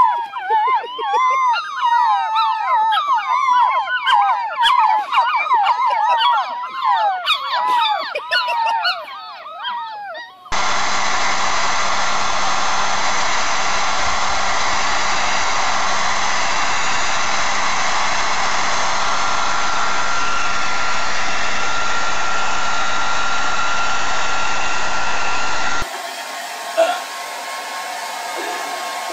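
A litter of puppies howling together, many wavering howls overlapping, for about ten seconds. Then a steady, even blowing noise with a low hum for about fifteen seconds, and after an abrupt change near the end a hair dryer blowing with a few short cries over it.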